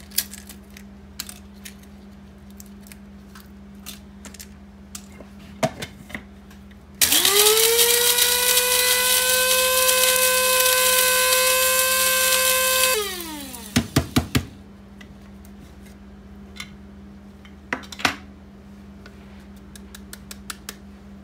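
Electric blade coffee grinder grinding dried habanero peppers to powder: the motor whines up to speed about seven seconds in, runs steadily for about six seconds, then winds down with a falling whine. Scattered clicks and knocks of the grinder and its lid being handled before and after.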